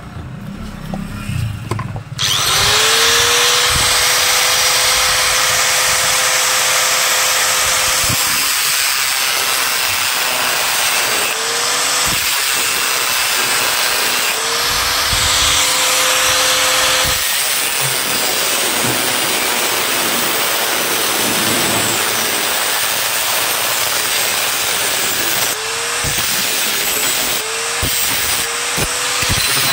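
Handheld angle grinder cutting into an electric iron's metal soleplate to widen the seat for a larger heating element. It starts about two seconds in and grinds continuously, its motor whine fading when the disc bites and rising again each time it comes free, several times near the end.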